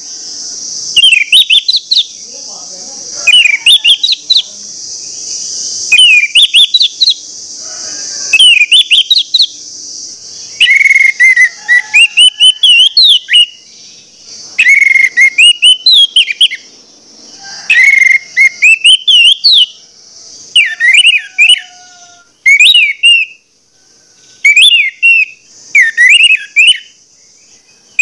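Orange-headed thrush (anis merah) singing loud, clear, insistent song in short whistled phrases of quick rising and falling notes, a phrase every two to three seconds. This is the full 'plong ngotot' song that keepers play to stir other anis merah into singing.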